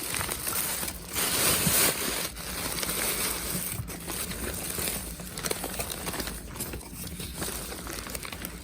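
Packaging rustling and crinkling with scattered clicks as a shipped bag of live fish is unwrapped, loudest about a second in.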